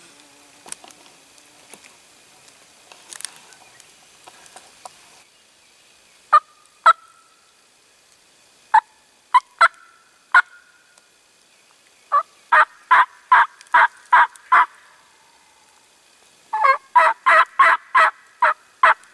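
Turkey yelps: loud, sharp notes about three a second. A few scattered notes come first, then two longer runs of eight to ten yelps each. Faint rustling and light clicks fill the first few seconds.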